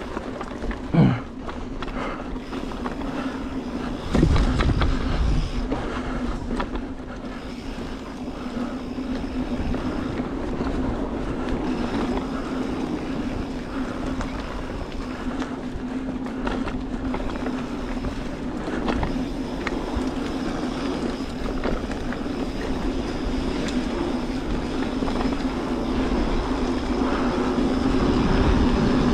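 Mountain bike riding down a dirt trail: continuous rolling and rattling noise with a steady hum, and a heavy thump about four seconds in.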